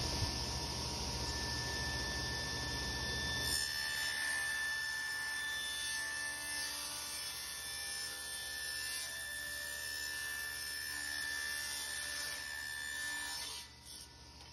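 Table saw ripping a walnut blank into strips: a steady run with a thin high whine, cutting off abruptly near the end.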